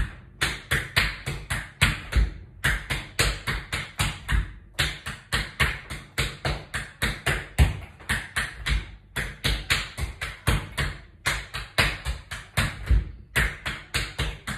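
Tap shoes striking the floor in quick rhythmic clusters: single tap time steps (shuffle, hop, step, tap, step) danced over and over with a break. Each phrase lasts about two seconds, with a short pause between phrases.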